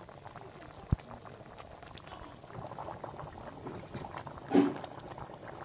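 Pot of green-jackfruit curry boiling in water, a steady bubbling with many small pops. A single dull knock comes about a second in, and a short, louder voice-like sound near the end.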